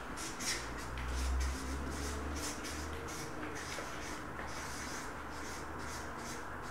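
Felt-tip marker writing on flip chart paper: a run of short scratching strokes, a few a second.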